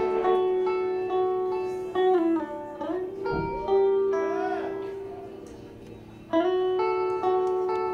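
Clean electric guitar playing slow, ringing notes and chords on its own, each one left to fade, with some notes bent in pitch in the middle.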